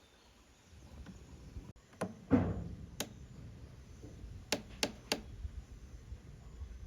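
A handful of sharp knocks and clicks over a low wind rumble: a loud thud about two seconds in, a click a second later, then three quick clicks in a row.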